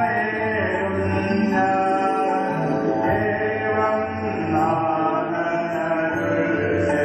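Voices singing a devotional hymn in chant style, with long held notes at a steady level.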